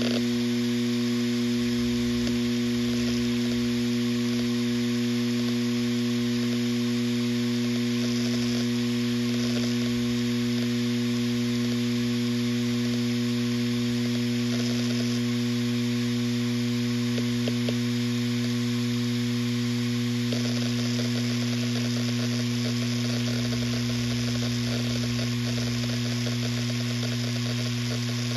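Western Digital RE 4 TB (WD4000FYYZ) 7200 rpm hard drive spinning: a steady motor hum with several overtones and hiss above it, and a few faint ticks. It carries an extra buzz that the uploader puts down to the phone not sitting flat on the drive; it gets rougher about twenty seconds in.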